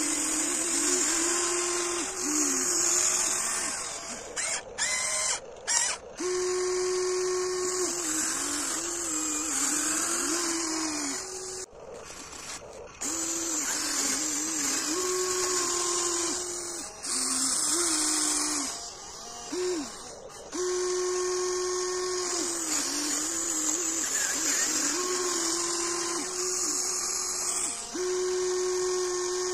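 Electric motors and actuators of a Huina 1594 RC excavator whining in runs of one to a few seconds, starting and stopping over and over. The pitch dips at times as the arm and bucket work under load digging into compacted gravel.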